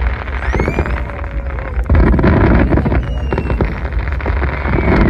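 Aerial fireworks bursting and crackling in a steady rumble. A heavier, louder volley comes in suddenly about two seconds in and another near the end, with a few rising whistles early on.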